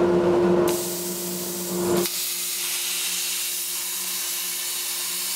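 CNC plasma cutter torch piercing and cutting 3/8-inch 316 stainless steel plate: a hiss starts over a steady hum about a second in, shifts about two seconds in, and then runs as a steady hiss while the arc cuts.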